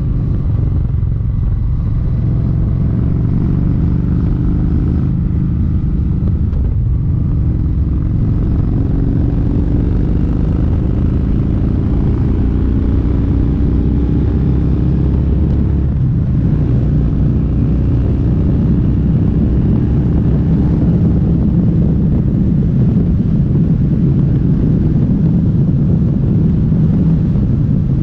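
Kawasaki Vaquero's V-twin engine, fitted with a new K&N air filter and an aftermarket exhaust, pulling under acceleration on the road. Its note climbs steadily through each gear and drops back at the shifts.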